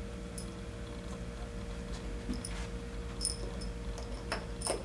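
A few faint, scattered clicks and taps as a screw and mounting cap are handled and a screwdriver is set against them at a doorframe, over a steady low hum.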